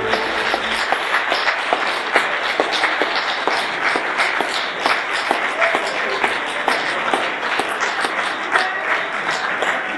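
Audience applauding, dense steady clapping, just after the dance music cuts off. A few voices rise over the clapping near the end.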